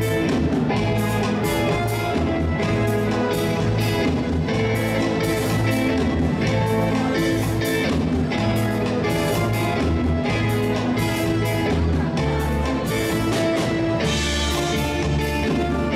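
Live band playing an instrumental passage with no vocals: electric guitar, bass guitar and keyboard over a drum kit keeping a steady beat.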